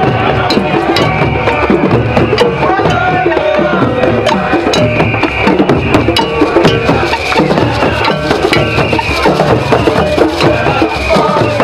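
Crowd of marchers singing together, with hand claps and percussion keeping a beat.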